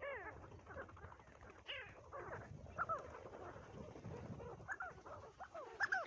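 A flock of pin-tailed sandgrouse calling: many short, overlapping calls that rise and fall in pitch, several a second, over a low rumble.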